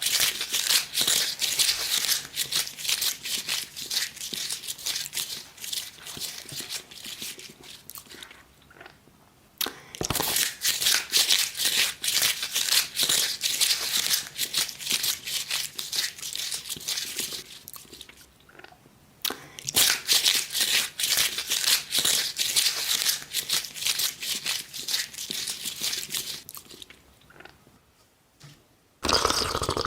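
Close-miked ASMR eating sounds: crunchy, crackling chewing in three long bouts with short pauses between them. A short, louder sound comes right at the end.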